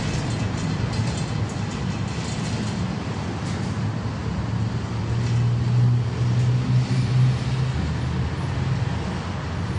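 Inside a 71-605A tram car running along the street: a steady low rumble of the running gear on the rails, with a low hum that swells for a few seconds midway.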